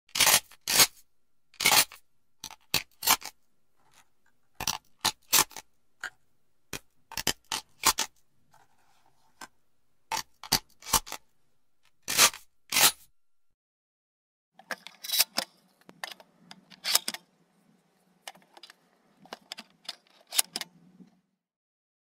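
Shotgun being handled and reloaded: a run of sharp metallic clicks and clacks from the shells and the action, in irregular groups and close pairs, with no shot fired.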